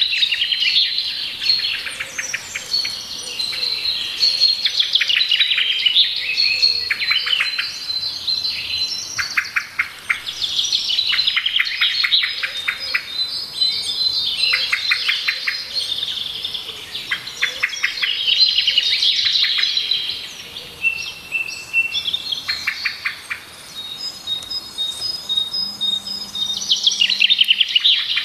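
Small birds chirping together without a break: fast trills of repeated short chirps overlapping with higher held whistled notes.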